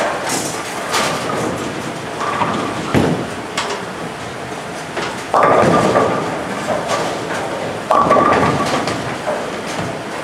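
Bowling alley sounds: a bowling ball lands on the wooden lane and rolls away about five seconds in, then crashes into the pins about two and a half seconds later, over a steady clatter of balls and pins on other lanes.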